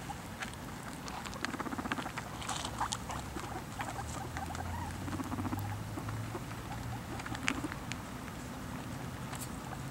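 Several guinea pigs crunching dry pellet food from a plastic bowl: a rapid, irregular patter of crisp chewing clicks.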